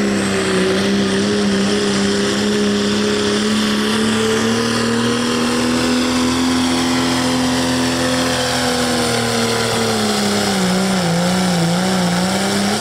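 Turbocharged Cummins diesel in a second-generation Dodge Ram pulling truck, running flat out under load as it drags a weight-transfer sled. The engine note holds steady, then sags and wavers in pitch for the last couple of seconds as the sled bogs the truck down.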